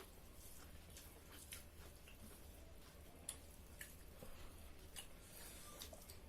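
Near silence with faint, scattered clicks and smacks of people eating: chewing and food being handled.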